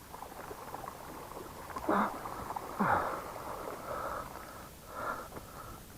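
A person breathing hard in a series of short, noisy breaths, about one a second, with a low falling grunt of effort about three seconds in, as he hauls a lift net in by hand.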